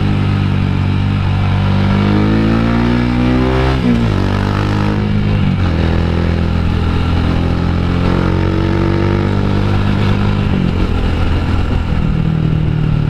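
Rusi Classic 250 motorcycle engine, heard from the rider's seat, accelerating through the gears. Its note climbs and drops sharply at each upshift: about four seconds in, again a second and a half later, and near eleven seconds in.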